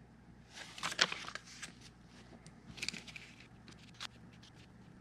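Faint rustle and crinkle of paper dollar bills being handled, in short bursts about a second in and again around three seconds in, with a few small clicks.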